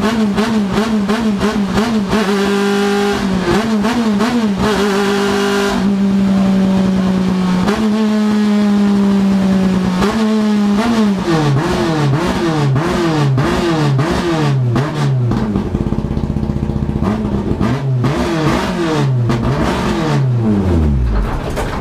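A Turismo Nacional Clase 3 touring car's engine heard from inside the cockpit. Its pitch wavers rapidly at first, then from about halfway the revs rise and drop again and again about once a second, sinking to a low rumble near the end as the car slows.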